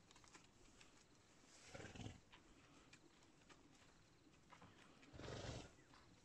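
Zebra snorting: two short breathy snorts about three and a half seconds apart, otherwise near silence.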